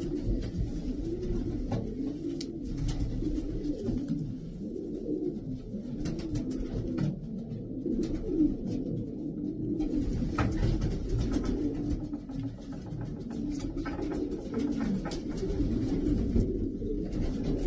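Racing pigeons cooing, several birds overlapping in a low continuous warble, with scattered soft clicks and scuffs.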